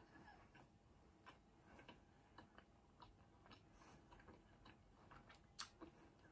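Near silence: quiet room tone with a few faint, scattered clicks, one a little louder near the end.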